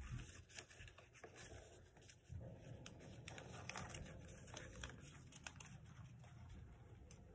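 Faint rustling and crinkling of paper being folded and creased by hand, with scattered small ticks.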